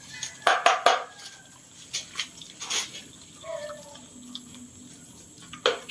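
Several dogs eating from plastic bowls on a concrete floor: wet chewing and slurping, with sharp clicks and knocks, the loudest cluster about half a second to a second in.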